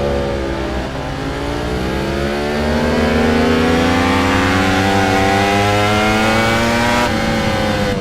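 Ducati V4 motorcycle engine accelerating hard, its pitch climbing steadily for about six seconds, then dropping sharply near the end and falling away.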